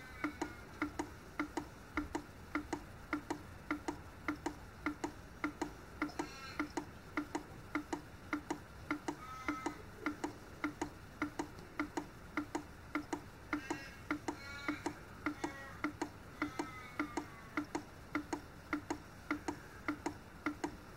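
OI Analytical 9310 online cyanide analyser ticking steadily while it runs an analysis, about two and a half clicks a second. A few faint high squeaky chirps come in between the clicks.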